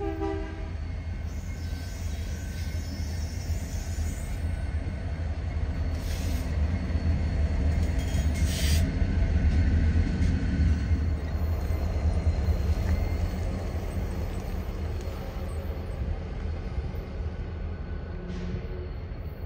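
Diesel-electric freight locomotives going by: the tail of a horn blast in the first half second, then a deep engine rumble that builds to its loudest about halfway through and slowly fades. Two short hissing noises come around the middle.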